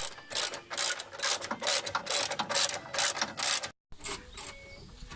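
Rapid, repeated mechanical clicking that stops abruptly about three and a half seconds in, followed by fainter, sparser clicks.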